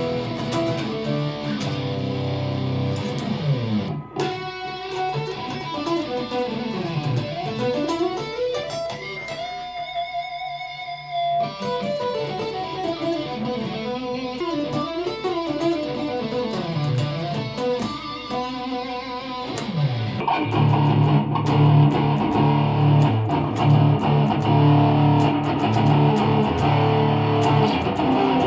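Electric guitar played through a high-gain amp simulator: a low riff, then a lead passage full of bends and slides, then a louder, heavier riff from about twenty seconds in.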